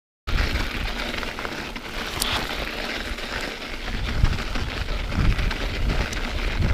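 Mountain bike riding along a snowy forest trail: a steady rush of tyres rolling over snow mixed with wind rumbling on the microphone. It starts abruptly a moment in.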